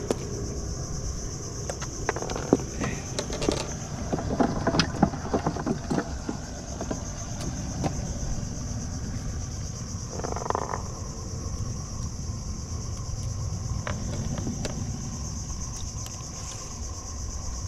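Steady high-pitched buzz of insects from the surrounding mangroves, with a low rumble of wind and water underneath. Scattered clicks and knocks of tackle being handled in the boat come between about two and six seconds in.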